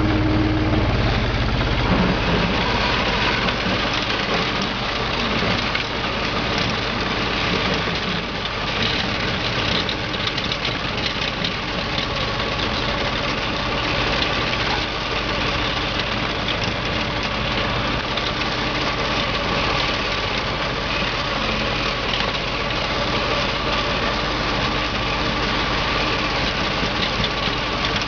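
Engine of a small plough vehicle running steadily under load as its front-mounted steel snow plough blade pushes snow along a tarmac drive.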